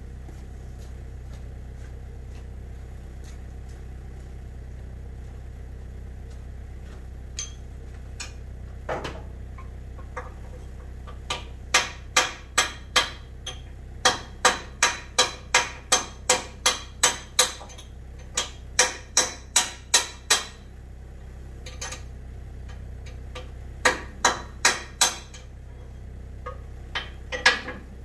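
A hammer striking metal in quick runs of blows, about three a second, with pauses between the runs, over a steady low engine hum.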